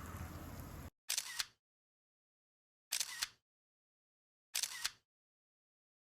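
Camera shutter sound effect, three times about 1.7 s apart, each a quick double click set in dead silence, after a second of faint outdoor ambience that cuts off suddenly.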